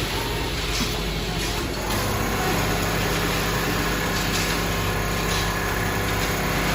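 Automatic CNC quilting and sewing machine running as it stitches a pattern on a sleeping bag: a steady motor hum with the fast, even chatter of the needle. The sound changes slightly about two seconds in.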